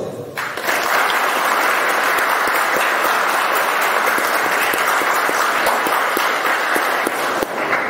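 Audience applauding: a steady round of clapping that starts about half a second in and dies away near the end.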